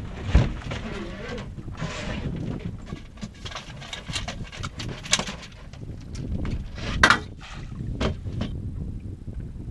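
Scattered knocks and clatter of a fishing rod and landing net being handled on a boat deck while a hooked fish is fought, with two louder bumps, one just after the start and one about seven seconds in.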